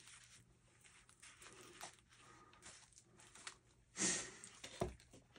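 Canvas knife sheath rustling faintly as it is handled, then a louder brush and a soft knock about four to five seconds in as it is laid down on a table.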